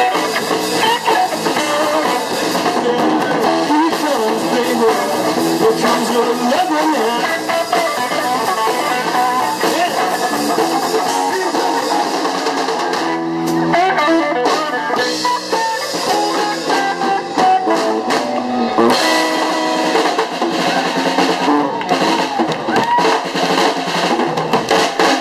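Live band playing an instrumental passage with no singing: electric guitar over a drum kit.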